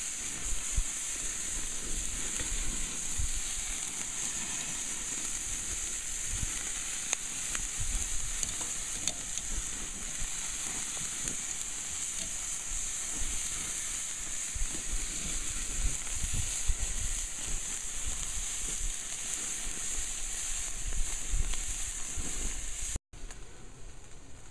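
Lamb steaks sizzling on a charcoal grill: a steady high hiss with scattered small crackles. It cuts off abruptly near the end.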